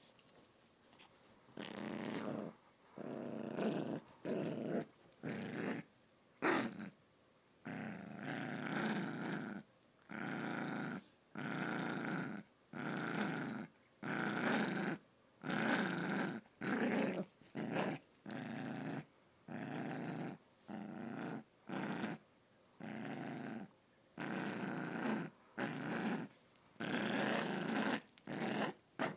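Small dog growling possessively over a stuffed toy monkey as a hand tries to pull it away: repeated rough growls, each about a second long, broken by short breaths.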